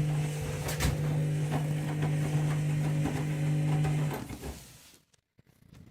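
Candy washing machine running with a steady low hum and a few light knocks; the hum cuts off about four seconds in and dies away to near silence.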